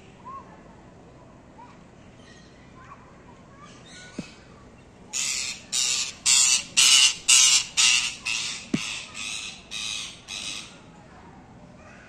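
Green parrot giving a run of about eleven harsh calls, roughly two a second, starting about five seconds in, loudest early in the run and tapering off.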